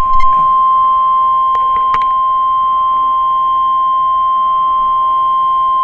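NOAA Weather Radio's 1050 Hz warning alarm tone, a single loud, steady beep held without a break; it is the alert that comes ahead of a tornado warning. A few faint clicks of reception static sound in the first two seconds.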